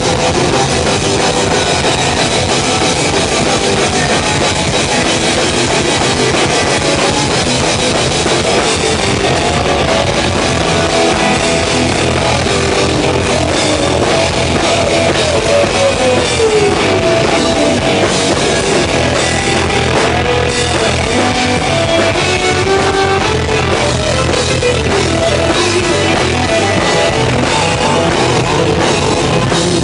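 Loud rock music from a band, with a drum kit and electric guitar, playing continuously.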